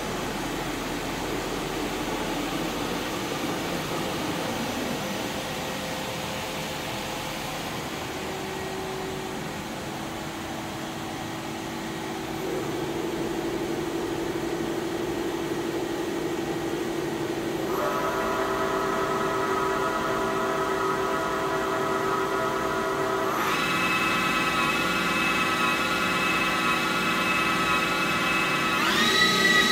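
You Ji YV-1200ATC CNC vertical boring mill running, a steady rushing noise under a machine whine. The whine comes in about halfway through and steps up in pitch several times, with a quick upward glide near the end as the machine speeds up.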